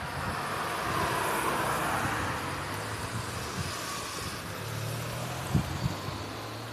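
Road traffic heard from a bicycle: a motor vehicle's steady engine hum with tyre noise that swells about a second in and then eases. Two sharp knocks come near the end.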